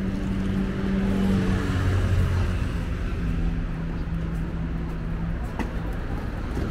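City road traffic: car engines running with a low, steady hum over a constant rush of traffic noise.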